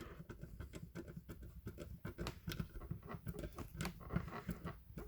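Small screws being driven by hand into the model's frame parts: a faint, irregular run of small clicks and scratches of the screwdriver and parts.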